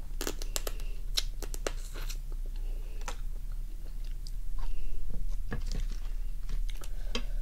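Close-miked mouth sounds of someone eating raw lime-cured crab: sucking and chewing with sharp crunchy clicks, dense in the first two seconds and scattered after. A steady low hum runs underneath.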